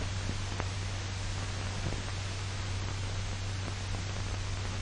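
Steady hiss and low hum of an old 1940 film soundtrack, with a few faint crackles.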